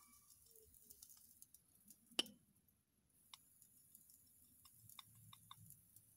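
Near silence with a few faint clicks and taps: one sharper click about two seconds in, and a quick run of four small ticks near the end.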